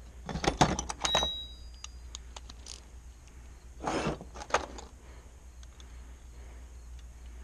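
Metal tools and parts clinking and rattling in two short bouts, about half a second in and again about four seconds in, with a brief high squeal in the first bout, as a part is worked loose on a dirt bike being stripped down.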